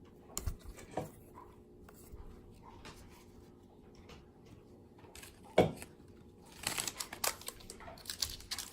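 Baseball cards being handled and flipped through: soft clicks and rustles, a louder click about five and a half seconds in, then a busier run of crisp card clicks and wrapper crinkling near the end.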